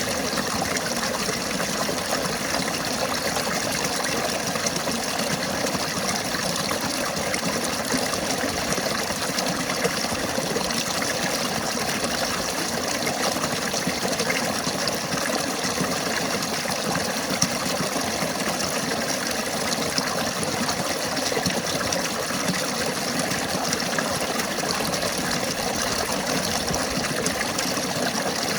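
River water flowing, a steady, even rush that never lets up.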